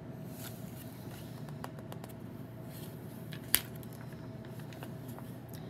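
Pages of a paperback picture book being turned by hand: soft paper rustles and small clicks, with one sharp snap about three and a half seconds in, over a faint steady room hum.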